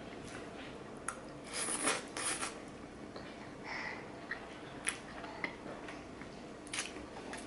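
Spaghetti being slurped and chewed close to the microphone: short hissing sucks and sharp wet mouth clicks.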